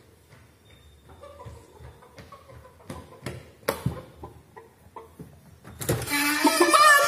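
A quiet room with a few light knocks or bumps against a door about three to four seconds in, then a thud near the end as a high-pitched, sliding voice breaks in loudly.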